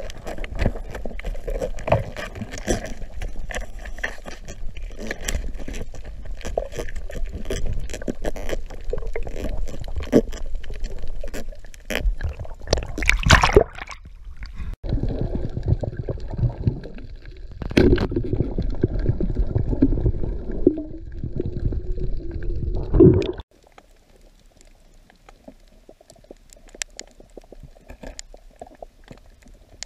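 Water heard through a snorkeller's action camera: a dense crackle of small clicks underwater, then sloshing and splashing as the camera breaks the surface, then a sudden drop to a quieter underwater stretch with only faint clicks.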